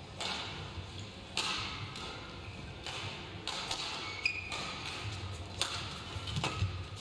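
Badminton rackets striking a shuttlecock: a series of sharp, separate hits roughly a second apart, with a brief shoe squeak on the court floor about four seconds in.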